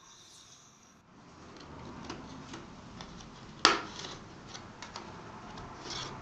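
Small clicks and light scraping as a PowerBook G4 keyboard is pried away from the chassis and a bent paper-clip tool is worked in beside it, with one sharp click a little past halfway.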